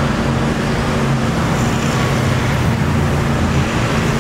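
Lathe machinery running with a steady low hum over a constant noise bed.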